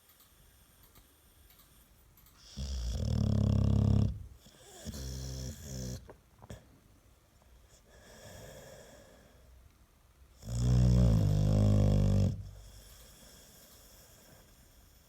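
American Staffordshire terrier snoring: two long, loud snores about eight seconds apart, with a weaker snoring breath after the first and a faint one before the second.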